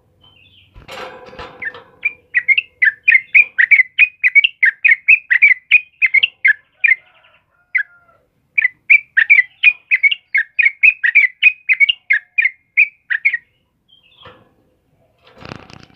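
Yellow-vented bulbul (trucukan) singing two long runs of rapid, bubbling repeated notes, about four to five a second, with a short break in the middle. A rustle of the bird's wings and movement comes before the song and again near the end.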